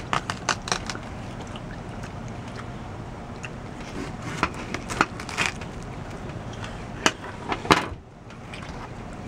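Watermelon being bitten and chewed: irregular sharp, clicky crunches, several close together at first and a few more scattered after, the loudest shortly before the end.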